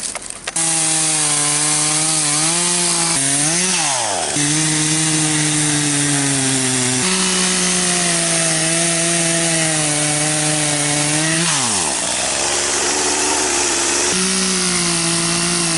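Poulan two-stroke chainsaw running at high speed, a steady high buzz that starts about half a second in. Twice its pitch sweeps sharply down and back up.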